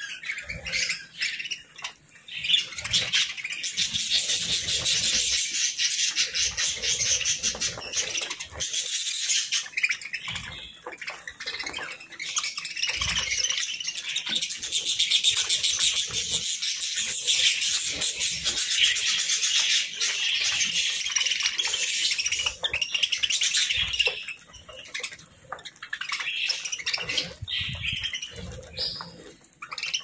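A flock of budgerigars chattering and chirping all at once, a dense, continuous warbling that thins out into scattered chirps near the end.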